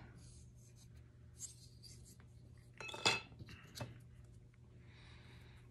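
Small metal pistol parts and tools being handled on a workbench: a few light clinks and clicks, with one louder clink about three seconds in.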